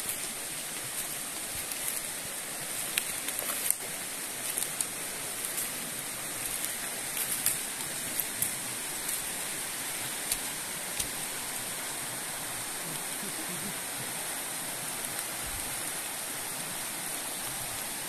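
A shallow rainforest creek flowing steadily over a riffle, a continuous rush of water, with a few faint scattered clicks in the first half.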